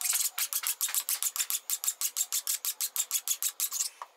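Flat hand file rasping across a metal part clamped in a bench vise, in quick short strokes about seven or eight a second, stopping just before the end.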